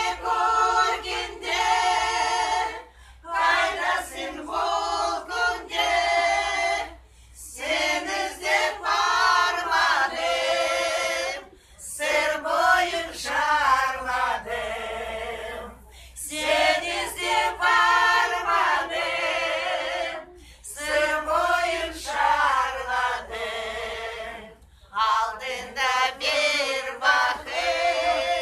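A small group of mostly elderly women singing a song together unaccompanied, in phrases of a few seconds with short breaks between them.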